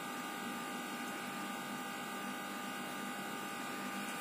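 Steady room noise: a constant hiss with a faint, high electrical whine of several steady tones, and no distinct events.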